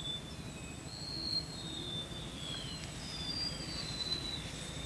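Outdoor ambience: birds calling with short, repeated falling whistles over a steady high insect whine and a low background rumble.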